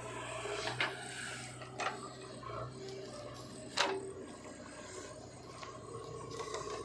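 Backhoe loader's engine running steadily, with a few sharp metallic knocks, the loudest about four seconds in.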